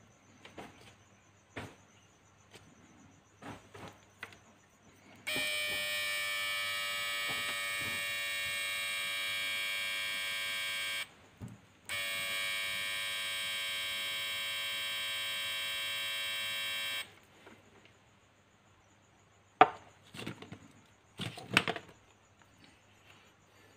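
Homemade 12 V to 400 V AC oscillator buzzing through its step-up transformer with a steady tone, on for about six seconds, off for a second, then on for about five seconds more. Scattered clicks and knocks of handling around it, with one sharp knock near the end.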